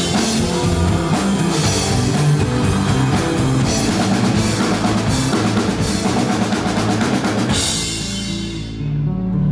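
Live rock band playing electric guitars, bass, drums and keyboard, with a steady drum beat. About three-quarters of the way through the hits stop, leaving held low notes ringing while the cymbals die away.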